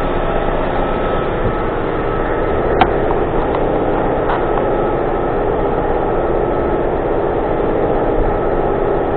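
An engine idling steadily, with a sharp metallic click about three seconds in and a few fainter ticks.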